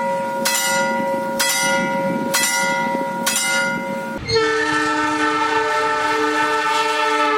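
A railway signal rings with a steady chord of tones, struck about once a second. After about four seconds a train horn takes over with one long, loud multi-tone blast, its pitch beginning to fall near the end.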